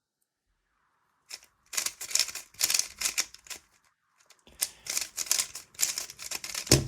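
HuaMeng YS3M ball-core magnetic 3x3 speedcube being turned in quick runs of clicking layer turns, with a pause between them, at the close of a solve. A single heavier knock near the end is louder than the turns.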